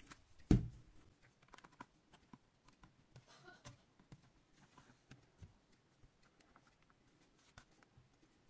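Small plastic clicks and light scrapes of a plastic pry tool working along the seam of a tablet's plastic case to open it, with one louder knock about half a second in.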